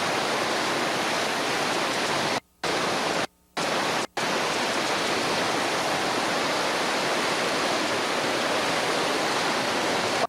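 Whitewater rapids rushing: a loud, steady roar of water. It cuts out to silence three times, briefly, between two and four seconds in.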